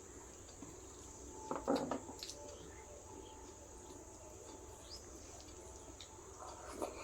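Close-up mouth sounds of eating rice and curry: chewing and smacking, loudest about a second and a half in and again near the end, over a steady high-pitched background whine.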